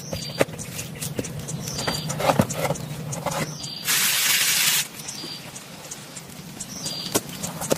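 Scattered light clicks and knocks, with a dense hiss lasting about a second near the middle and a short high chirp repeating about every second and a half.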